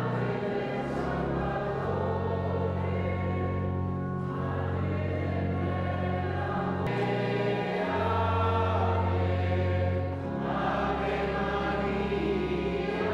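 Sacred choral music: voices singing over long held low notes that change pitch several times.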